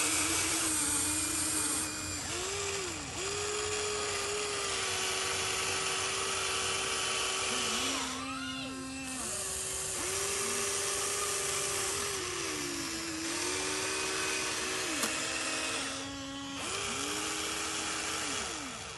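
Radio-controlled model excavator's small electric motors whining in runs of one to several seconds. The pitch rises as each run starts and falls as it stops, the way a model's motors sound as the arm, boom and bucket are worked.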